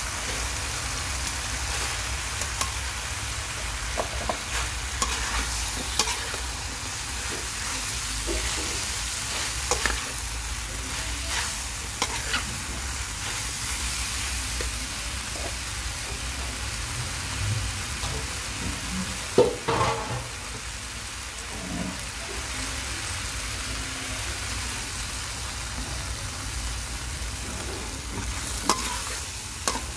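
Stir-frying in a wok: beef and green vegetables sizzling steadily in hot oil, with scattered clicks and scrapes of a metal spatula against the pan. The sharpest knock comes a little past the middle.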